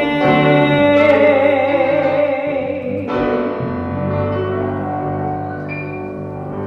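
The jazz trio's song ending: the singer holds the last note with vibrato over sustained piano and bass for about two and a half seconds. Then a final piano chord with a low bass note is struck and rings out, slowly fading.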